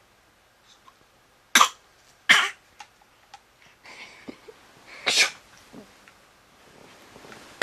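Three short, sharp mock sneezes: two close together, then a third a few seconds later.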